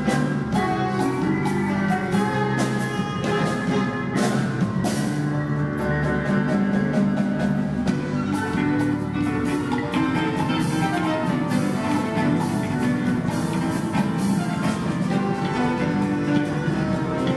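Live ensemble music: piano, saxophones, brass, violins and flutes playing together over a drum kit that keeps time with steady cymbal and drum strokes.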